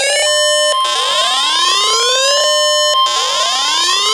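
Weather-radio alert: a steady 1050 Hz warning alarm tone comes in just after the start, over an electronic alarm that sweeps upward in pitch about every two seconds, three rising whoops in all.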